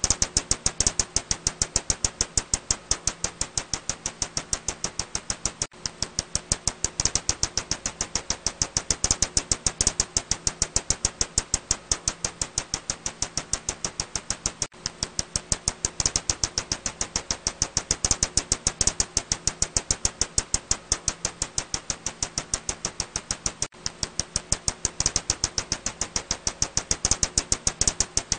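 Ussuri bat calls made audible by a bat detector: a fast, evenly spaced train of sharp clicks, several a second, over a faint steady hum, with a brief break about every nine seconds.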